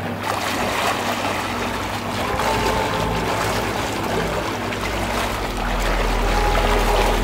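Front-crawl swimmer splashing against the churning current of a swim spa's jets, with a steady low pump hum underneath.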